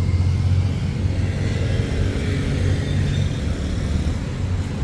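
Steady low rumble of a car on the move, with engine hum and road noise heard from inside the cabin.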